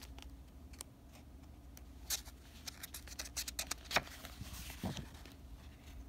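Faint rustling and light taps of a paperback book being handled and a paper page turned, with the sharpest tap about four seconds in.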